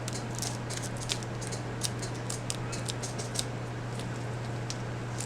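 Irregular crinkles and sharp clicks of a plastic bag being handled around a headset, over a steady low hum.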